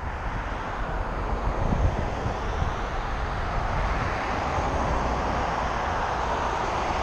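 Wind and road noise on a motorcycle helmet camera beside highway traffic, a steady rushing that swells over the first few seconds and then holds.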